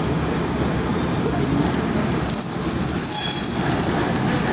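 KiHa 58 diesel railcar's wheels squealing against the rails as the car rolls past a station platform, a high steady squeal that grows louder about two seconds in, over the rumble of the running train, heard from inside the car.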